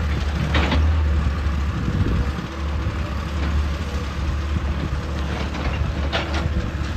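Heavy diesel engine of a hydraulic excavator running with a steady low rumble. Two brief, higher-pitched sounds come through, one under a second in and one near the end.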